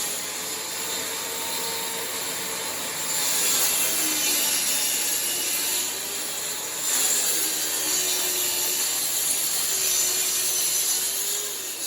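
Electric saw cutting through wood: a continuous, hissing machine noise with the motor's pitch wavering slightly, dipping briefly a few times as the cut goes on.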